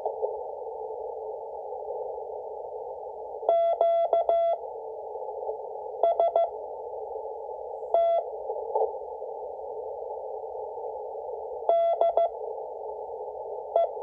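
W1AW's 5 wpm Morse code practice received on an Icom IC-718 HF transceiver in CW mode: short groups of dits and dahs at one steady pitch, a few seconds apart. Behind them runs a constant hiss of band noise, narrowed by the receiver's filter.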